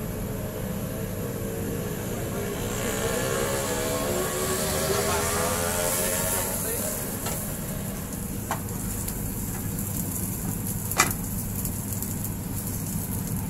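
Shawarma wrap sizzling on a gas flat-top griddle over a steady kitchen hum, with a rising whine in the first half. A few sharp metal clanks follow, the loudest about eleven seconds in as the steel grill press is set down on the griddle.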